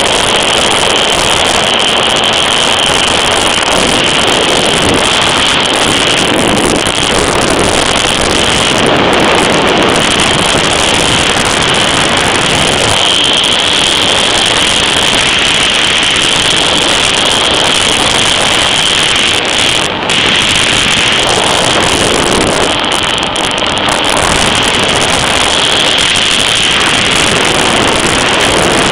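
Kawasaki ZXi jet ski's two-stroke engine running at high revs at full speed, heard onboard as a loud, steady high-pitched whine over rushing water, with wind buffeting the microphone.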